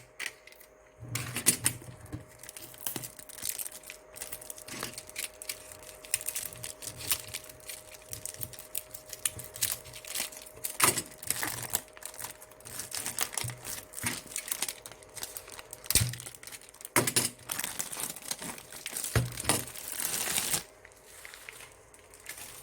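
Packaging being handled while a cordless electric kettle is unpacked: rustling in irregular bursts with scattered sharp knocks and clicks, stopping about two seconds before the end.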